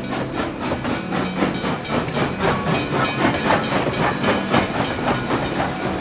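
Train running along the rails, its wheels clacking over the rail joints in a quick, even rhythm over a steady rumble.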